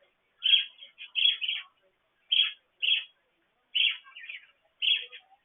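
Pet budgerigars chirping, a string of short chirps about one or two a second with short quiet gaps between, heard through a petcam's thin microphone.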